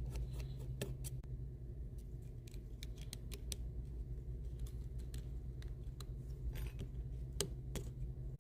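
Scattered small clicks and taps of tools and small parts being handled at a workbench, over a steady low hum.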